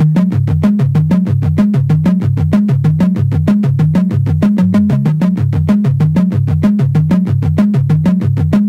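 Electronic music: a synthesizer bass riff of short notes repeating fast and evenly, with a steady beat.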